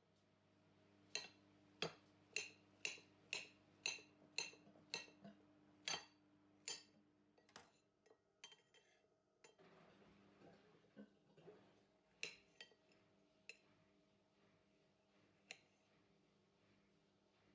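Kitchen utensil clinking against dishware: about a dozen sharp, ringing clinks at roughly two a second, then a soft shuffling stretch and a few scattered clinks near the end.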